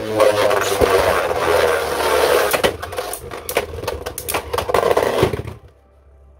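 Two Beyblade Burst tops, Brave Valkyrie and Tempest Dragon, spinning and grinding around a plastic Beyblade stadium, with many sharp clacks as they collide. The sound cuts off suddenly about five and a half seconds in.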